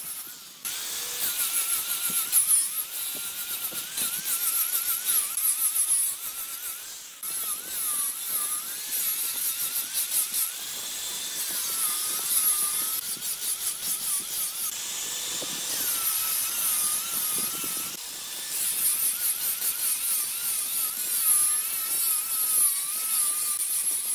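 Wood lathe running with a turning tool cutting into the spinning wood: a high hiss of shavings over a whine that wavers in pitch as the load changes. The sound shifts abruptly a few times.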